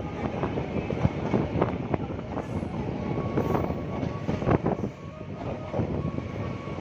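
Rail bus running along the track, heard from on board: a steady rumble and rattle with irregular knocks from the wheels on the rails. A faint, thin steady whine joins it about three seconds in.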